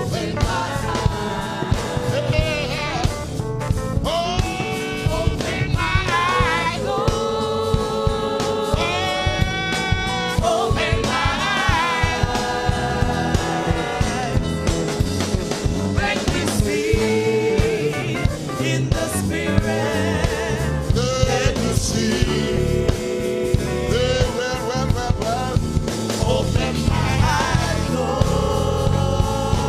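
Gospel music: singing over a band with drums and bass, at a steady level.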